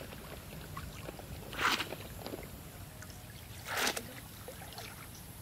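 Water splashing twice, about two seconds apart, as if scooped or churned by hand, over a faint low background hum.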